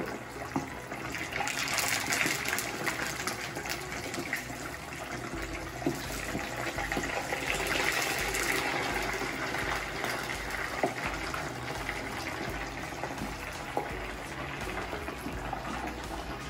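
Hot oil sizzling and crackling steadily in a skillet as fish fries, swelling louder a couple of times, with a few faint clicks of a utensil against the pan.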